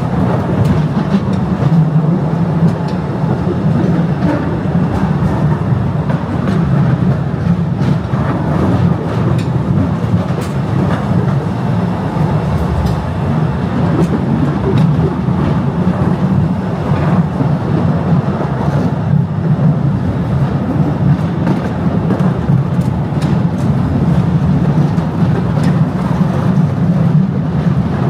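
Postojna Cave tourist train running on its rails: a steady, loud rumble of the cars with scattered light clicks and rattles.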